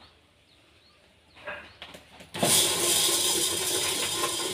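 Popcorn machine switched on a little over two seconds in, running with a loud, steady mechanical rattle.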